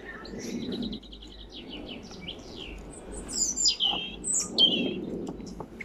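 Songbirds singing: a quick trill of repeated high notes, then several clear notes sliding down in pitch.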